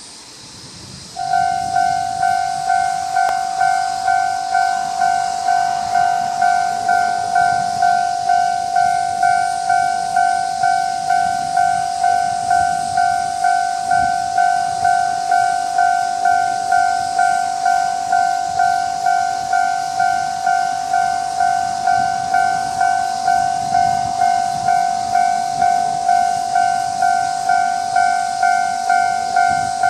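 Japanese railway level-crossing warning bell starting up a little over a second in, then ringing in an even, loud electronic ding-ding at about one and a half strokes a second, the crossing's standard tone, signalling an approaching train.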